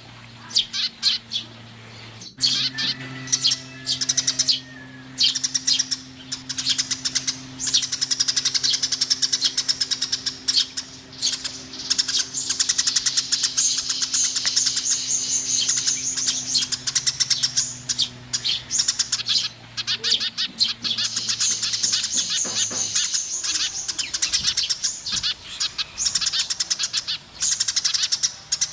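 Eurasian tree sparrows at their nest chirping rapidly and almost without pause, in dense high-pitched runs. A steady low hum runs underneath and stops about two-thirds of the way through.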